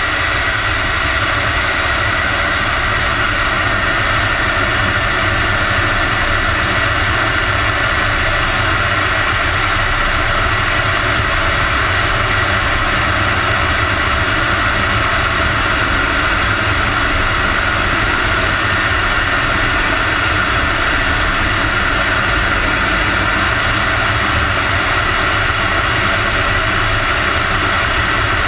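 Radio-controlled Aermacchi MB-339 model jet in flight, heard from inside its cockpit: a steady, even turbine whine with high tones over a constant rush of air and engine noise.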